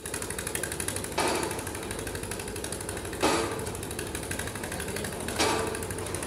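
Pile driving: a drop hammer strikes a pile three times, about two seconds apart, each blow ringing briefly. Under the blows a small engine runs with a fast, even beat.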